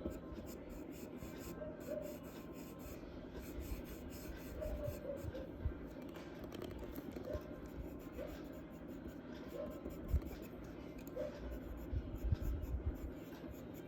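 Charcoal or pencil strokes rubbing and scratching steadily on drawing paper, with a few light knocks of the hand or tool now and then.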